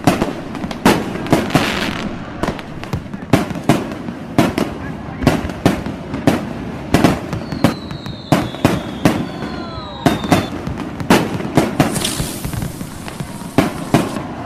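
Fireworks display: a rapid, irregular series of sharp bangs from bursting aerial shells. About seven seconds in, two whistles glide slightly downward, and around twelve seconds a crackling hiss rises over the bangs.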